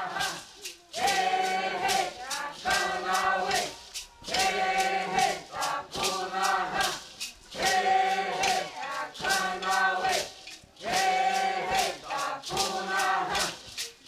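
A group of voices chanting short phrases over and over, with brief gaps between them, over a rattle shaken in a steady beat.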